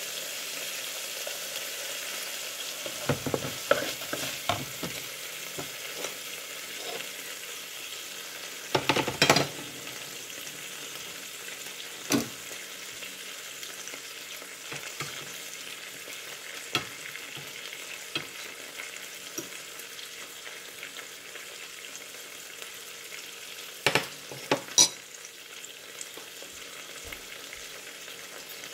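Steak and green onions sizzling in butter in a nonstick frying pan: a steady hiss that slowly dies down. A few sharp clicks and knocks cut through it, the loudest about nine seconds in and near the end.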